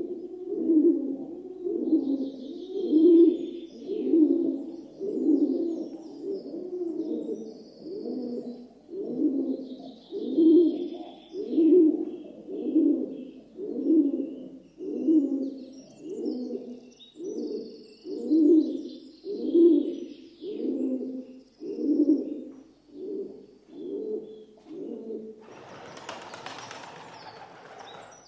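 Rock dove cooing, a low, throaty coo repeated about once a second with little change. Near the end a burst of noise lasting about two seconds briefly covers the calls.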